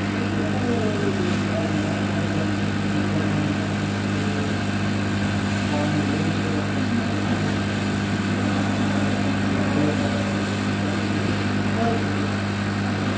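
Handheld hot air gun blowing steadily on a motherboard's BIOS chip, a constant low motor hum under rushing air, heating the chip's solder so it can be lifted off with tweezers.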